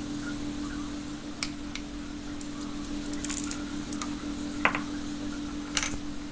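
Scattered, irregular light clicks and taps of hard plastic as a dismantled mechanical keyboard's parts are handled, over a steady low electrical hum.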